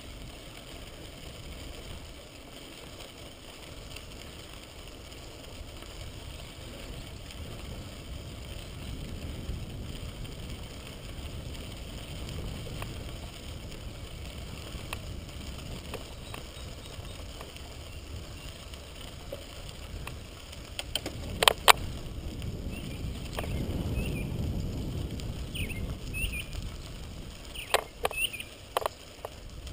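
Bicycle riding on a crushed-stone trail: a steady low rumble of tyres on gravel and wind on the camera microphone. A few sharp clicks and rattles come about two-thirds of the way in and again near the end, with some brief higher squeaks.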